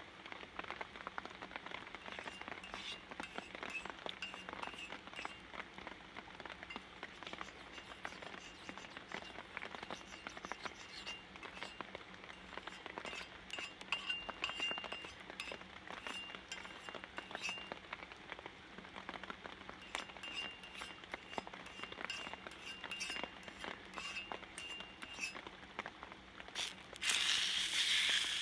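Rain dripping and pattering with many small clinks. Near the end a sudden loud sizzle starts as salted mackerel goes onto a hot iron griddle.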